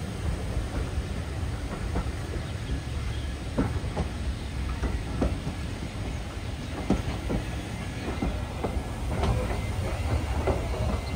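A train rolling along the track: a steady low rumble of wheels on rails, with irregular sharp clicks as the wheels cross rail joints.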